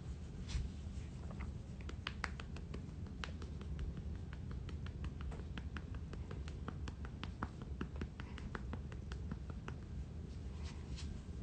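Light, irregular clicks and taps, a few a second, over a low rumble, from a hand playing with and rubbing a cat on a shaggy rug.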